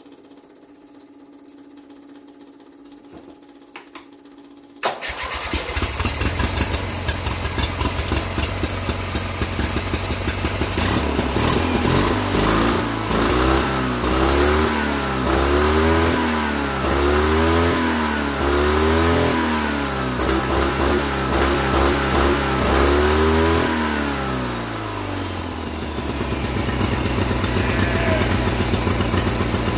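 Turbocharged twin-cylinder Briggs & Stratton lawnmower engine with a blow-through motorcycle carburetor starting about five seconds in, after a faint low hum. It is then revved up and down over and over, about once every two seconds, with a high whistle rising and falling along with each rev, before settling to a steady idle near the end.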